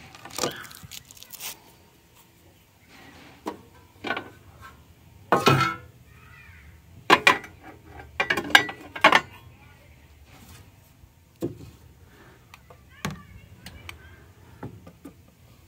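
Irregular clunks, clicks and rustles of plastic and metal grill parts and packing material being handled during the unpacking and assembly of a countertop electric grill, with a cluster of louder knocks in the middle.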